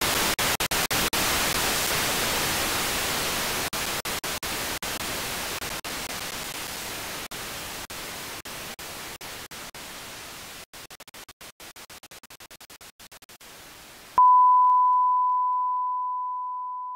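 Static hiss of a breaking-up TV signal, fading slowly and cut by brief dropouts that come more and more often. About fourteen seconds in it gives way abruptly to a steady 1 kHz test tone, the reference tone played with colour bars, which starts loud and slowly fades.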